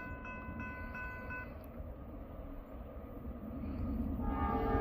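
Electronic grade-crossing bell dinging about three times a second, stopping about a second and a half in. From about four seconds in, the horn of an approaching locomotive sounds a steady chord, growing louder.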